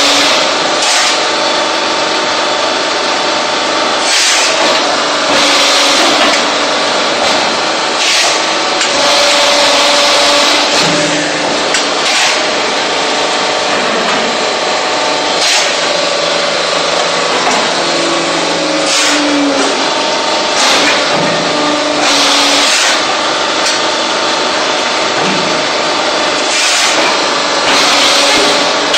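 Hydraulic block-making press running: loud, continuous machine noise with humming notes that come and go and shift in pitch, and hissing surges every few seconds.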